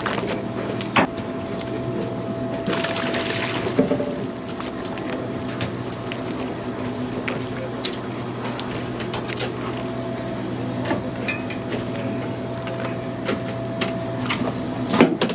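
Steady drone of a fishing boat's machinery with water washing along the hull, a brief rush of noise about three seconds in, and scattered clicks and knocks that get louder near the end.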